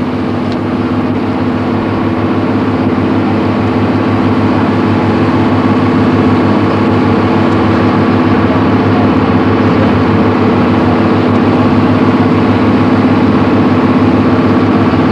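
Steady hum of a harbour tour boat's engine, heard from on board. It grows a little louder over the first few seconds, then holds even.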